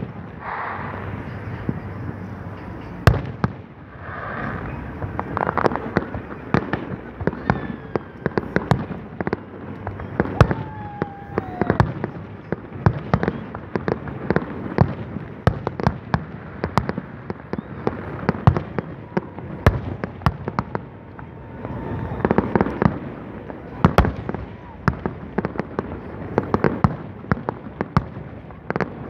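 Aerial fireworks display: shells bursting in rapid, irregular succession, with sharp bangs and crackling throughout and the loudest reports about three seconds in and near twenty-four seconds. A falling whistle is heard about ten seconds in.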